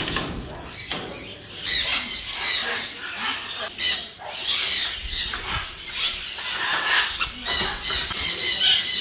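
Parrots and cockatoos screeching, a string of short, harsh, high calls.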